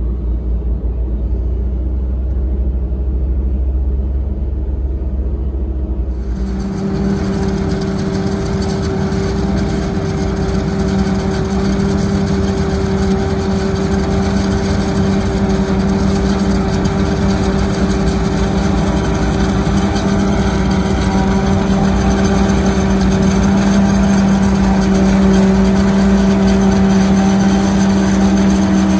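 Heavy diesel farm machinery running steadily. A deep rumble changes abruptly about six seconds in to a louder engine drone with a steady hum.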